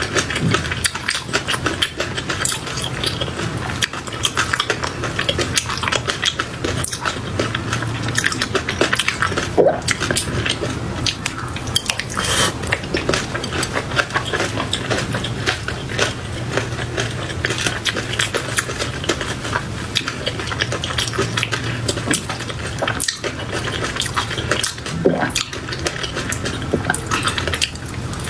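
Close-miked ASMR eating of raw shrimp in peanut sauce: a dense, continuous stream of small mouth clicks and chewing sounds over a steady low hum.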